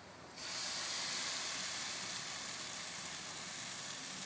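Frying onions and spices in oil in a hot nonstick kadai start to sizzle suddenly about half a second in, as a wet paste of ground tomato and roasted gram goes into the pan, then hold a steady sizzle.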